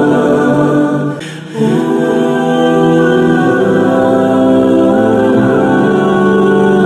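Wordless vocal background music: several voices hold long, sustained notes like a humming choir, with a brief dip about a second in.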